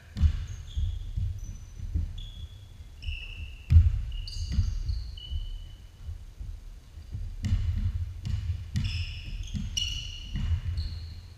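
Basketball bouncing and players' feet thudding on a hardwood gym floor, with many short, high sneaker squeaks. The heaviest thumps come just after the start and about four seconds in.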